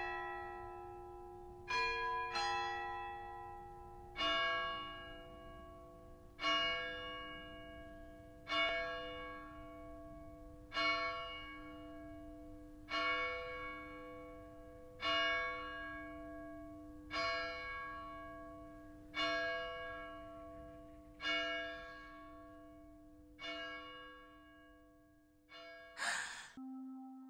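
A bell tolling slowly, struck about once every two seconds, each stroke ringing out and fading before the next. Just before the end, a short, loud burst of noise.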